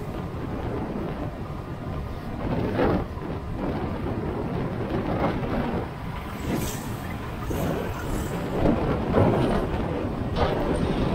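Wind buffeting the microphone of a moving motorcycle: a steady low rumble with irregular gusts, over the bike's running and road noise.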